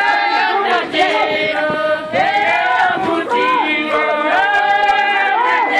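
A group of women chanting together in song, several high voices overlapping in held notes that slide up and down.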